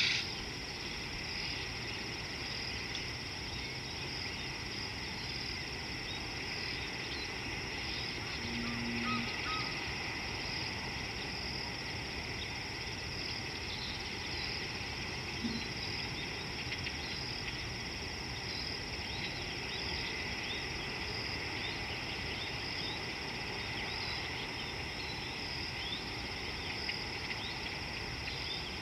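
Steady outdoor chorus of insects, a continuous high-pitched trill, with many short, faint bird chirps scattered through it, more of them in the second half. A brief louder noise comes right at the start.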